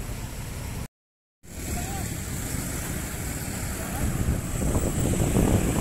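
Street traffic noise from motorcycles and cars idling and passing, with wind rumbling on the microphone. It drops out briefly about a second in, then grows a little louder near the end.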